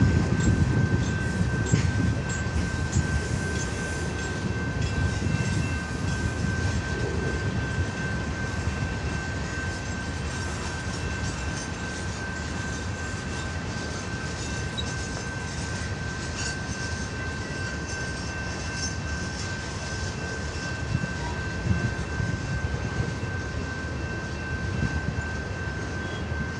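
CN freight train rolling past, its wheels rumbling over the rails, with a steady high-pitched ring held over the rumble throughout.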